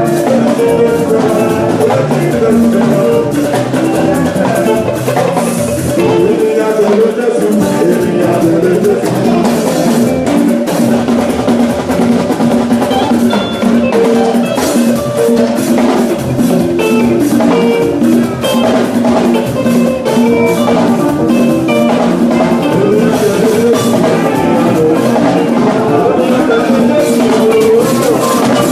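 Live band music: a drum kit keeps a steady beat under pitched instruments playing a melody.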